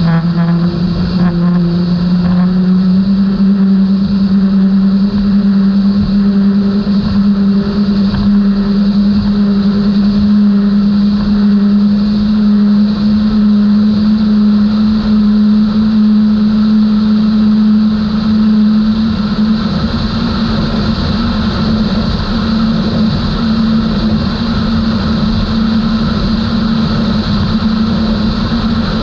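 Outboard engines of a 32-foot Skater powerboat running hard at high speed, a steady engine drone over a continuous rushing noise. The pitch climbs a little about two seconds in and rises again about two-thirds of the way through as the engines pull harder.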